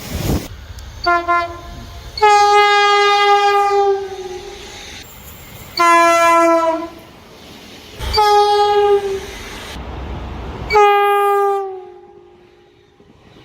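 Train horns blowing as trains pass, in a run of short clips cut together: about five blasts, some brief and one held for about two seconds. Several drop in pitch as the train goes by, the Doppler effect.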